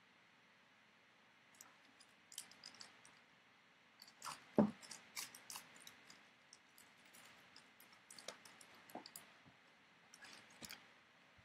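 Foil trading-card pack wrappers crinkling and tearing as they are handled and opened, in scattered light crackles, with a soft knock about halfway through.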